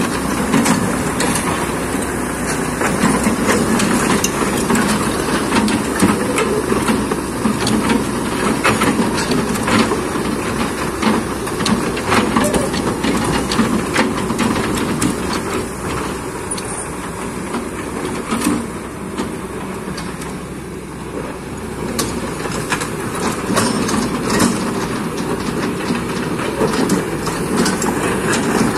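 Kobelco hydraulic excavator at work: its engine runs steadily under a continuous din of clanking, scraping and sharp knocks of metal against mud and stone. It eases off slightly about two-thirds of the way through.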